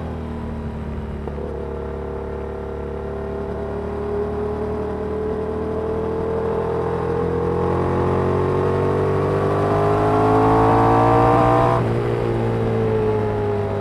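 Yamaha MT-07's parallel-twin engine through a Danmoto aftermarket exhaust, pulling steadily higher in revs and growing louder inside a road tunnel. About twelve seconds in the revs drop sharply and keep falling.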